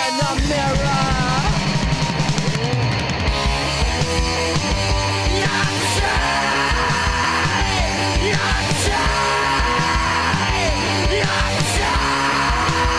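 Punk rock band playing: distorted electric guitar and drums on a steady, driving beat.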